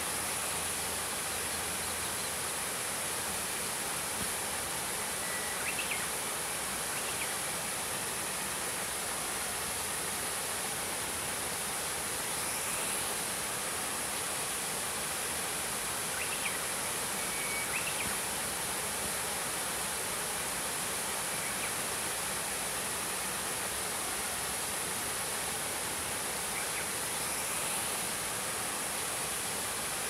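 Small forest waterfall splashing over rocks in a steady rush, with a steady high-pitched hiss over it. A Japanese bush warbler sings faintly a few times through the water noise.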